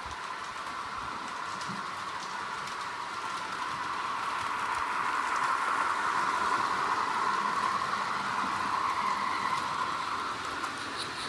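Model A4 locomotive and coaches running on model railway track, a steady hissing rumble of motor and wheels on rail. It swells as the train passes close, then fades near the end.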